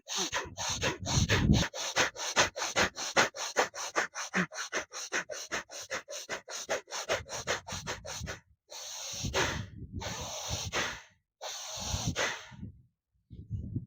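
A man doing bhastrika pranayama: rapid, forceful in-and-out breaths through the nose, about four strokes a second, slowing after about eight seconds into two or three long deep breaths.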